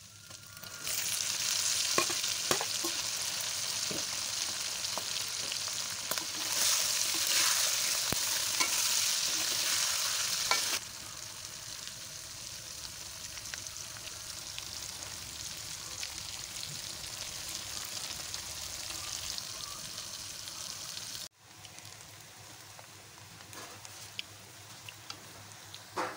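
Hot oil sizzling as dried fish and red chillies fry in a pan for pickle, with scattered clicks from a metal spatula stirring. The sizzle is loudest for the first ten seconds or so, then quieter.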